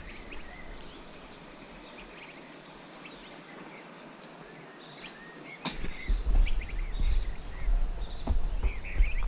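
Quiet outdoor ambience with faint bird chirps. About five and a half seconds in, a sharp click, followed by loud, uneven low rumbling and thumps on the microphone.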